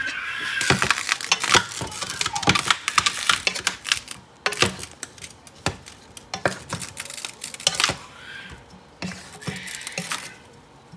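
Wooden spoon tossing broccoli florets in a metal pot: a quick, irregular run of clicks and knocks against the pot with the florets rustling, busiest in the first eight seconds and then another short flurry near the end.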